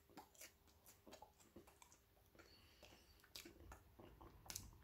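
Near silence: faint scattered clicks of chewing, over a faint steady hum of room tone.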